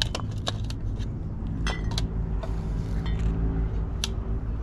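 A few light clinks and taps of glass and ceramic items being picked up and set down on a table, over a steady low engine hum.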